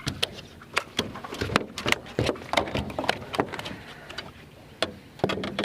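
Irregular sharp knocks and clatter in a fishing boat, a few each second, as a just-landed bass is handled on board.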